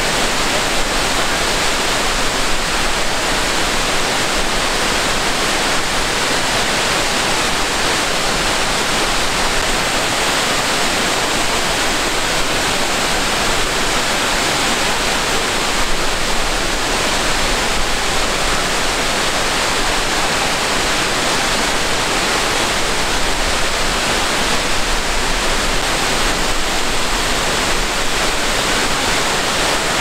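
Multi-tiered waterfall cascading over limestone ledges into pools: a steady, unbroken rush of falling water.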